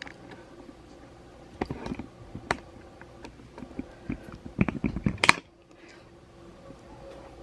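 Scattered light knocks and clicks of items being handled and set down in a refrigerator, in two short bursts, the last ending about five seconds in with a sharp click.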